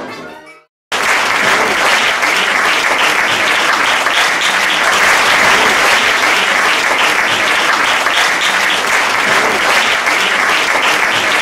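The last orchestral chord fades out, and after a brief gap a theatre audience applauds steadily with dense clapping.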